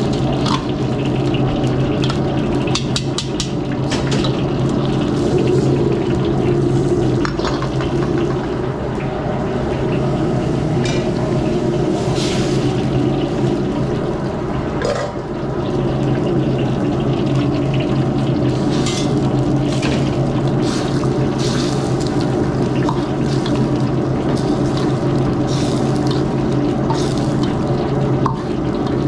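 Steady rushing noise of a restaurant wok station's gas burner and exhaust, with scattered clinks of a metal ladle and strainer against the wok.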